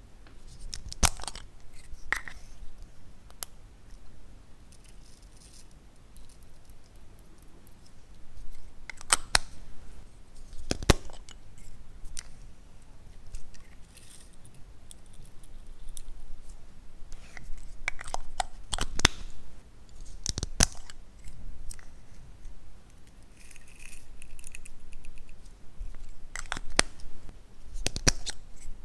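Scattered clicks and taps of small plastic makeup containers being handled, opened and twisted, with pink glitter being shaken onto clear slime. The clicks come a few seconds apart, and a short faint squeak sounds about two-thirds of the way through.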